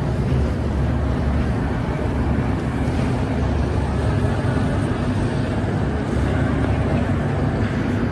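Steady low rumble of a metro station's running escalators and machinery, with no distinct events.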